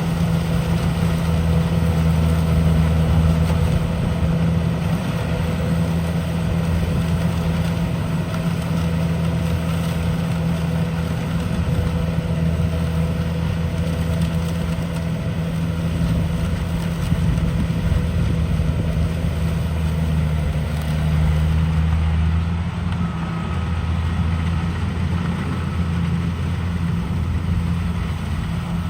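Rice combine harvester's diesel engine running steadily, a deep even drone with a faint higher whine above it.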